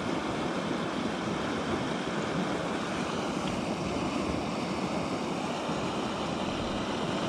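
Steady rushing of a small river's flowing water.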